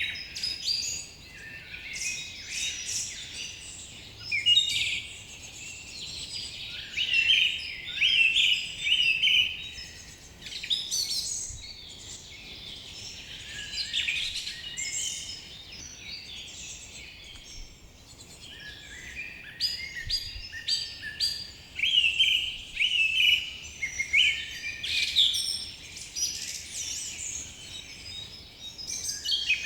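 A chorus of many songbirds chirping and trilling at once, overlapping quick high calls that come in clusters with short lulls between them.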